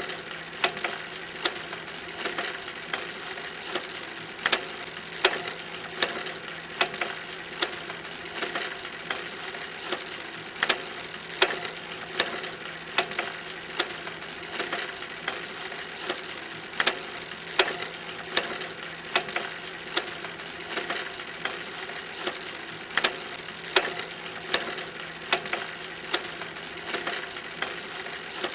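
Bicycle in motion: a steady rolling hiss with sharp irregular clicks and rattles, about one or two a second.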